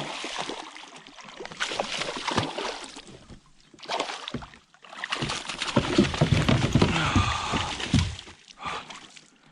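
Water splashing and sloshing in irregular bursts as a hooked bass thrashes at the surface beside the kayak and jumps into the landing net. The splashing is heaviest from about five to eight seconds in.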